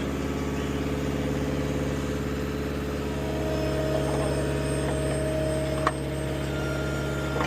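Heavy road-construction machinery engine running steadily at an even pace, with a single sharp click about six seconds in.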